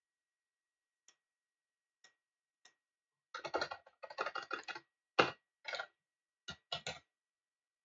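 Typing on a computer keyboard: a few light, separate keystrokes, then a quick run of key presses from about three seconds in, followed by several sharper single key strikes.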